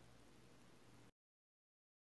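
Near silence: faint room tone with a low hum, cutting to complete silence about a second in.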